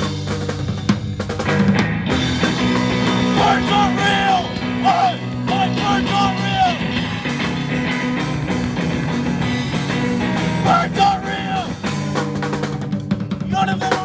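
Live rock band playing loudly: a drum kit and distorted electric guitar in a fast, angry punk-style song.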